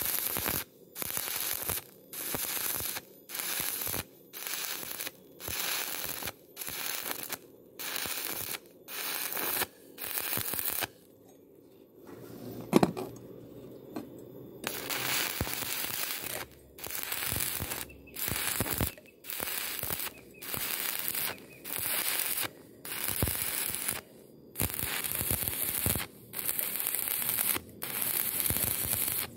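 Stick-welding arc crackling on thin galvanized square tube, in short bursts about once a second as the arc is struck and broken repeatedly. There is a longer unbroken run about halfway through, and one sharp knock just before it.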